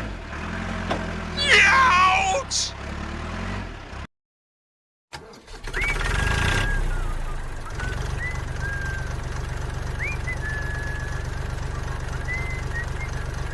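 Engine rumble, steady with a fast even pulse. It starts after about a second of dead silence some four seconds in, and a few short high squeaks come before the silence.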